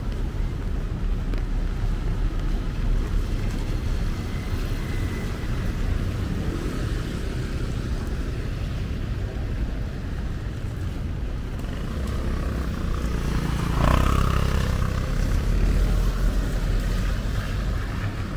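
Cars driving on wet streets, their tyres hissing, with wind rumbling on the microphone. Loudest as a vehicle passes about three-quarters of the way through.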